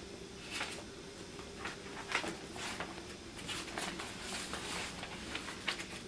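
Papers rustling and shuffling as they are sorted through by hand: a string of soft, irregular crinkles and slides.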